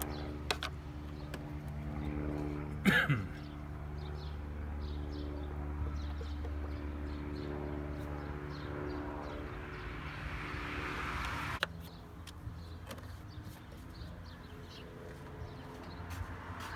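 A steady mechanical hum like an engine running. There is a short falling squeal about three seconds in, and a click near twelve seconds, after which the hum drops lower and quieter.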